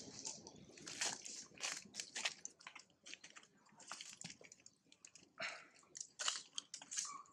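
Long-tailed macaque biting into and chewing a mango held in its hands: irregular wet crunches and smacks.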